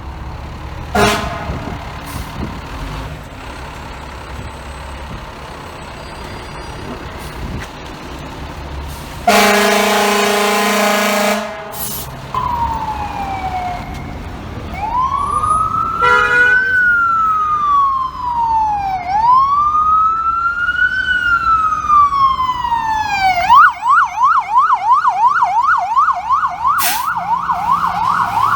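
Fire truck responding: a short horn blast about a second in, a long air horn blast of about two seconds near the middle, then a siren wailing slowly up and down that switches to a fast yelp near the end, over city traffic.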